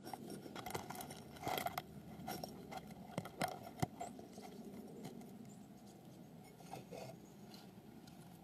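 Handling noise of a phone held close: clothing brushing and fingers tapping on the microphone, a string of small clicks and rustles that settles after about four seconds.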